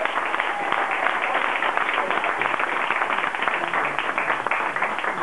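Spectators applauding, a dense, steady clapping of many hands.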